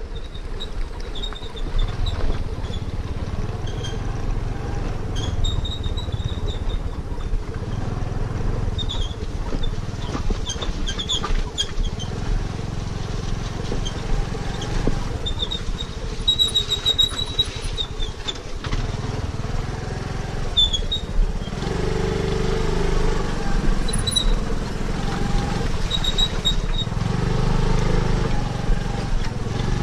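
Honda Activa scooter's engine running as it rides over a rough gravel and water-filled dirt road, with scattered high clicks and squeaks on top. About two-thirds of the way in, the engine note gets louder and fuller.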